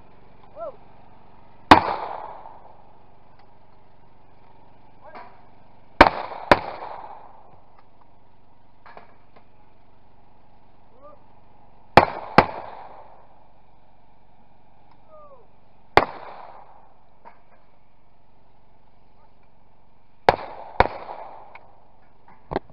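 Shotgun shots at clay targets: nine sharp reports, mostly as doubles about half a second apart, each followed by a short echo.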